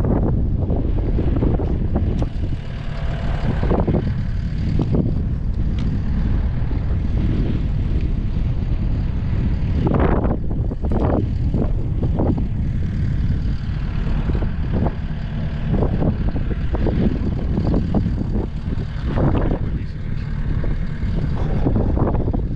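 Strong gusty wind buffeting the microphone: a loud, low, rumbling roar that surges and eases irregularly.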